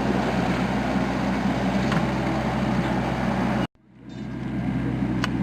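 A motor runs steadily with a low, even hum. About two-thirds of the way through, the sound cuts out abruptly and then fades back up over about a second.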